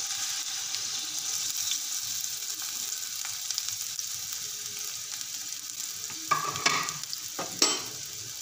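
Sliced onions sizzling as they drop into hot oil in an aluminium pot, a steady high frying hiss as they begin to brown. Near the end a few sharp knocks and scrapes cut through the sizzle.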